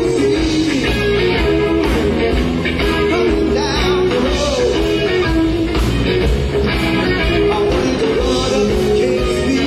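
Live rock band playing electric guitar, bass guitar and drums, loud and steady.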